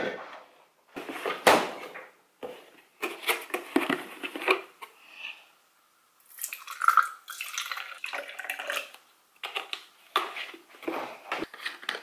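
Kitchen countertop handling: a plastic tumbler and cartons are knocked and set down in a string of clatters. Liquid is poured from a carton into the plastic tumbler.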